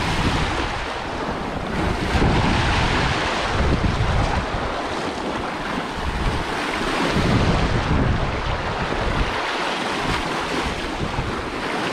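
Sea waves surging and washing against coastal rocks, with wind buffeting the microphone; the surf swells louder about two and seven seconds in.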